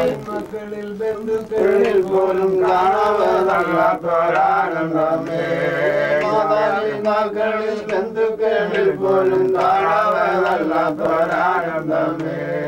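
A group of voices singing a Malayalam Christian devotional song together, with hand claps along with it.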